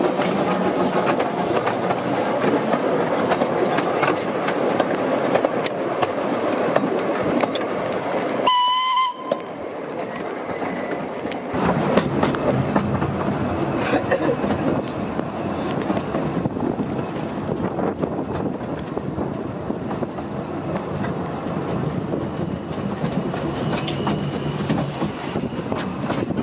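Narrow-gauge steam train running: steady rumble and clatter of the locomotive and carriages on the rails. A short whistle toot comes about nine seconds in, followed by a brief quieter stretch before the running noise resumes.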